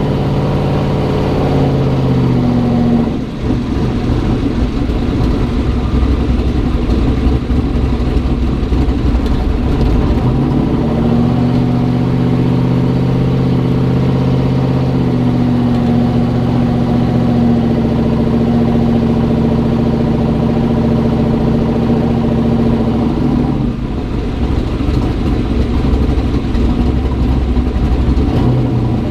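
Turbocharged LM7 5.3-litre V8 in a Chevy S-10 pickup, heard from inside the cab while driving on a freshly swapped turbo. The engine note falls over the first few seconds with a brief dip about three seconds in. It rises about ten seconds in and holds steady, then drops away about twenty-four seconds in.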